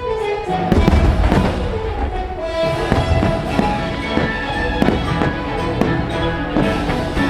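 Fireworks bursting in quick succession, with many sharp bangs and a heavier cluster of deep booms about a second in, over loud show music.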